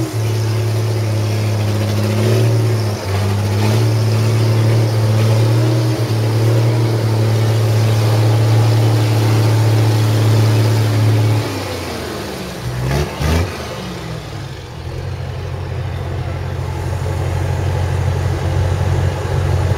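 Army truck engine running steadily under load through mud. About halfway through it eases off, with a brief swing in pitch, then settles into a steady, quieter drone.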